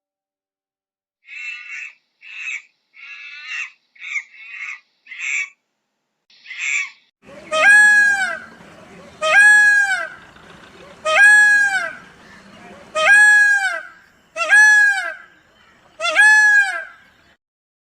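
Bird calls: a run of seven short, harsh calls, then six loud, clear calls, each rising and then falling in pitch, about one every second and a half.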